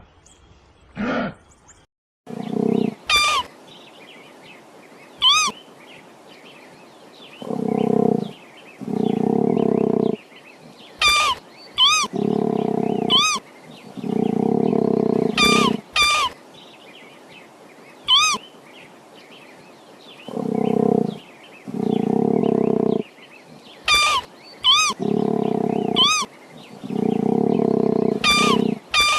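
Wild animal calls: low, rough roaring calls, mostly in pairs about a second long each, alternating with short high-pitched chirping calls.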